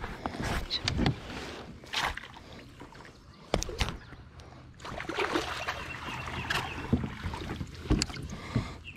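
Water splashing and irregular knocks and scrapes on a plastic fishing kayak as a hooked fish is brought alongside and landed with a net.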